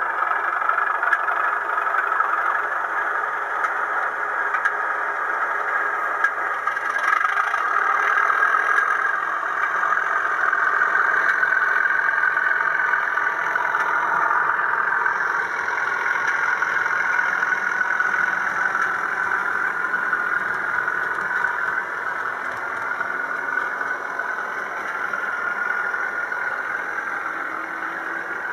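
Model Class 37 diesel locomotive hauling four Mk1 coaches on a model railway, giving a steady engine-like running sound that drops somewhat about two-thirds of the way through as the train moves away.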